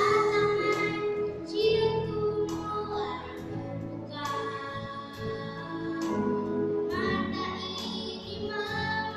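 A young girl singing a solo into a microphone, holding notes of a half-second to a second over instrumental accompaniment.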